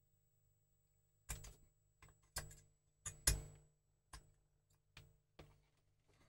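Small clicks and taps, about eight spread over four seconds, the loudest a little past halfway: a wire lead and a soldering iron tip being worked against the copper-plated nail terminals of a hand-wired circuit board.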